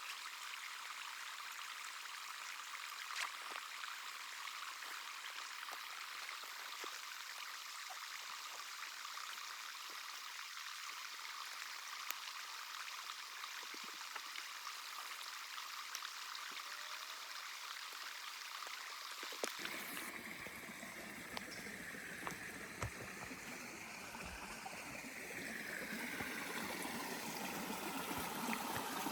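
Running water rushing steadily, like a stream or small cascade, with scattered small ticks. About twenty seconds in the sound changes abruptly to a fuller, deeper rush.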